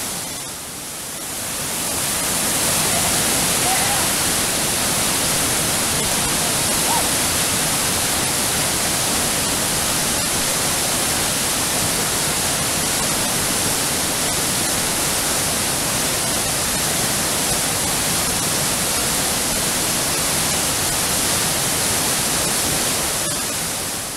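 Steady rush of heavy whitewater pouring through a river waterfall, with a brief dip in level just after the start.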